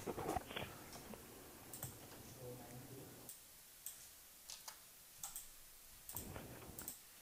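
Faint, irregular computer keyboard clicks, single keystrokes and short clusters with pauses between, the last cluster near the end.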